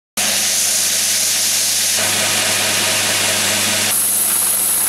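Carbatec BDS-1523H 3/4 hp combination belt and disc sander running, with a wooden block held against its 9-inch sanding disc. A steady motor hum lies under a loud sanding hiss, and the hiss gets brighter about four seconds in.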